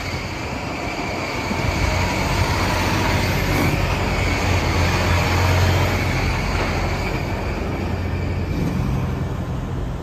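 Semi-truck (tractor-trailer) driving past: a steady low diesel engine rumble under a broad rush of tyre and road noise, loudest around the middle.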